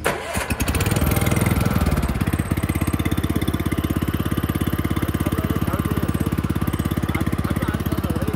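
Engine of an Asia AMC 880SM walk-behind cultivator: a click, then the engine running loud and uneven for a second or so, settling about two seconds in into a steady, rapid chugging idle.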